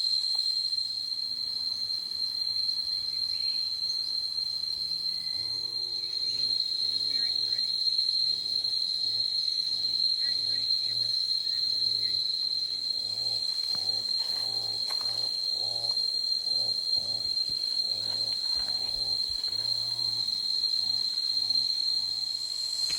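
Rainforest insects keeping up a steady high-pitched drone, one unbroken tone, with low voices talking faintly through the middle.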